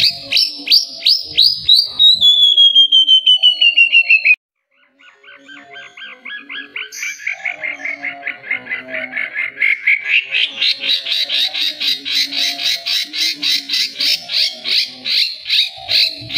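White-rumped shama (murai batu) singing fast runs of repeated whistled notes, several a second, the pitch sliding downward over the first few seconds. The song cuts off abruptly about four seconds in, then resumes softly and grows louder.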